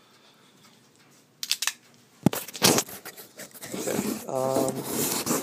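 Knife blade cutting into a cardboard shipping box: a few sharp knocks of handling about two seconds in, then a long scraping slice through the cardboard in the second half.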